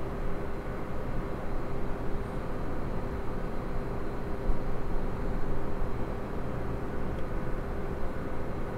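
Distant low rumble of the Falcon Heavy rocket's launch, arriving long after liftoff, heard as a steady low noise with a faint steady hum above it.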